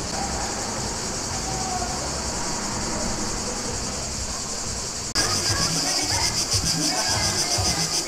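A chorus of cicadas buzzing steadily in the summer trees, a dense pulsing drone that gets suddenly louder about five seconds in.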